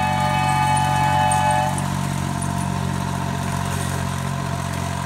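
Small Plymouth switcher locomotive sounding its horn in a steady chord that cuts off about two seconds in, with the locomotive's engine running steadily underneath.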